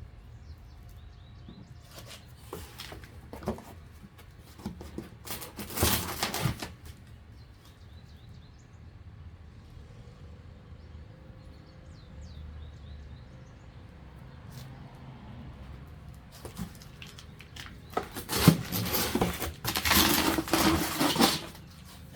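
Rustling and handling of packaging and parts in short bursts, a brief one about six seconds in and a longer, louder stretch near the end.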